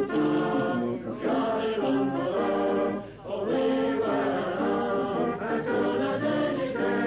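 A group of voices singing an English folk song together in an old, narrow-sounding 1950s field recording, with short pauses between phrases about a second and three seconds in.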